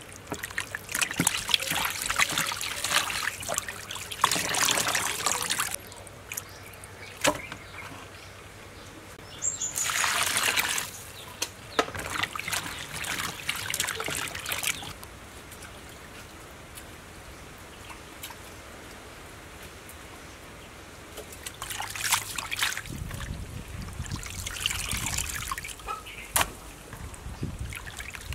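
Hands squelching and sloshing raw chicken intestines in a plastic basin of salted water as they are washed clean, the water trickling and splashing in several bursts with short pauses between.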